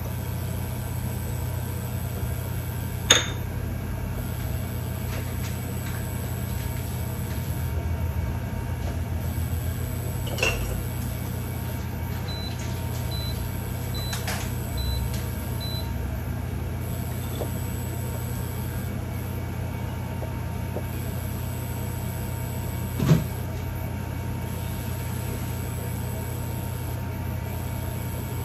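A steady low mechanical hum with three sharp knocks against cookware, a few seconds apart, the first and last the loudest. A run of five faint short high beeps is heard near the middle.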